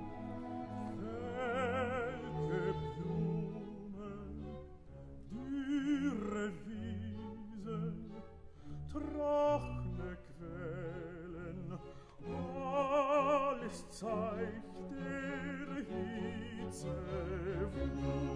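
Background classical music: an operatic voice singing with wide vibrato over an orchestra.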